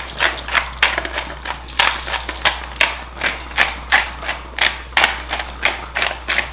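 Hand-twisted stainless steel salt grinder crunching coarse pink Himalayan salt, a steady run of gritty ratcheting grinds at about three a second.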